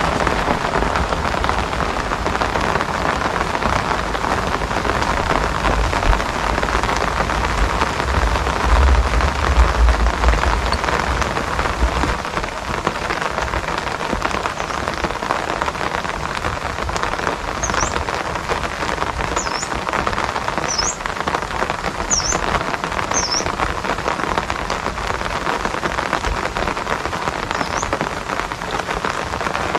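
Steady rain falling and pattering, recorded on a phone. A low rumble sits underneath for the first twelve seconds or so, and a few short, high chirps come through in the second half.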